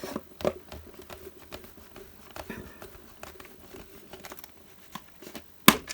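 Scattered small clicks, taps and rustles of hands fiddling with a small screw and plastic and card packaging, with one sharper click near the end.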